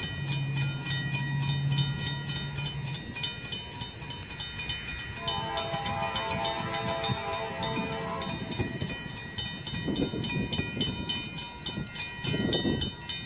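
Grade-crossing warning bell ringing in a rapid, even rhythm while an approaching freight locomotive's multi-note horn sounds from about five seconds in, the signal for the crossing ahead.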